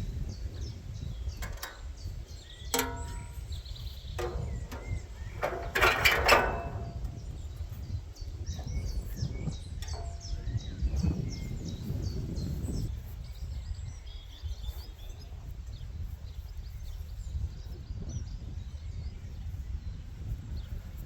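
Metal sculpture parts being fitted and tapped together: a few sharp knocks and clinks in the first several seconds, some ringing briefly, the loudest a cluster about six seconds in. A steady low outdoor rumble and birds chirping run underneath.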